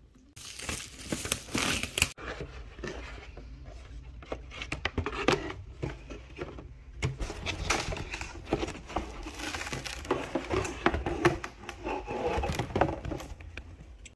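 Packaging crinkling and tearing and cardboard rustling as a Pokémon trading card game box is handled and opened, with irregular scrapes and sharp clicks and knocks from the handling.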